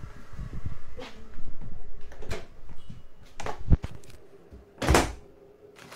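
A handful of separate knocks and thuds, the strongest and longest about five seconds in.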